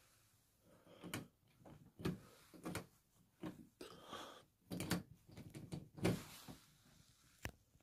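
A string of irregular sharp clicks and short knocks, like a door, latch or other fittings being handled, about a dozen spread over several seconds.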